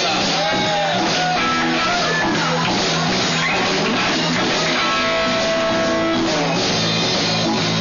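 Live blues band playing: an electric guitar lead with bent notes and one long held note about five seconds in, over bass and drums.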